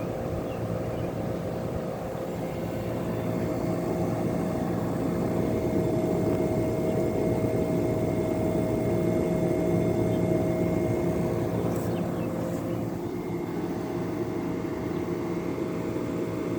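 Vintage Crossley 5000 BTU window air conditioner, an Emerson-built unit, running: a steady hum and rush of fan air with a few held tones, getting a little louder in the middle. Its fan is off balance, which the owner says makes the whole unit shake.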